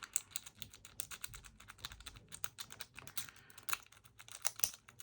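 A pick rake working in the keyway of a Master Lock 7804D padlock, making a fast, irregular run of small clicks as it is raked over the pins.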